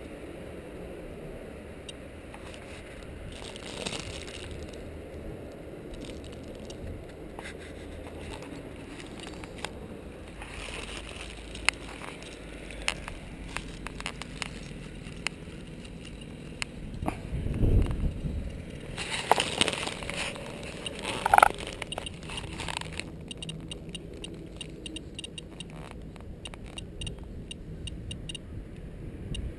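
Plastic bag wrapped around a handheld Geiger counter crinkling and scraping as it is handled and set down in dry grass, with scattered sharp clicks. The loudest handling, with a dull thump, comes a little past halfway. A run of fast, even ticks follows near the end.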